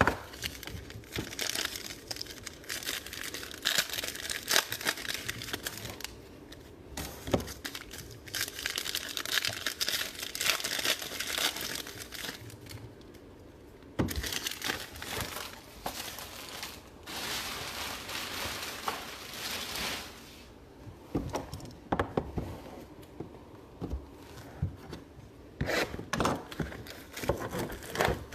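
Plastic wrapping on boxes of 2018 XR football trading cards being torn and crumpled off, in uneven bursts of crinkling with scattered short clicks and knocks.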